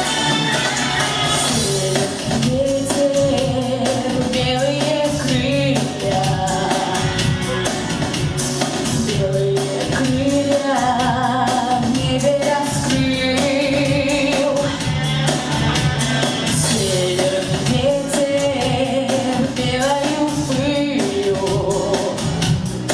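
A woman singing a pop song over instrumental accompaniment with a steady beat.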